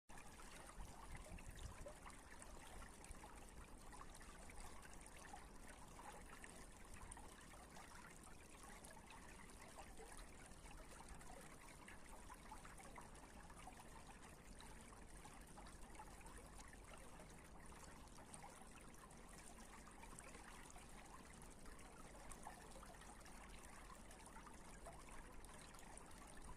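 Faint, steady trickling of running water.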